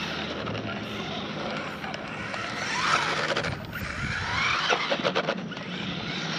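1/16 scale brushed RC drift car running, its electric motor whining and sliding up and down in pitch as it speeds up and slows. A quick run of clicks comes about five seconds in.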